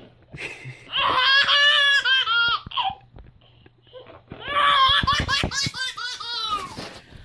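A baby laughing hard in two long fits, the first starting about a second in and the second about halfway through.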